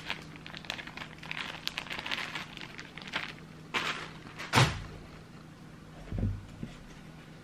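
Clear plastic bag crinkling and rustling as it is handled, with two dull thumps about four and a half and six seconds in.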